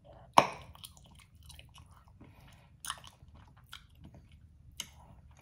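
Close-miked mouth sounds of chewing food, with a loud, sharp smack about half a second in, then a few softer smacks and clicks.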